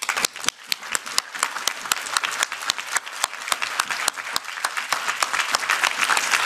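Audience applauding: a few scattered claps that fill in within a second or two into dense applause, growing louder toward the end.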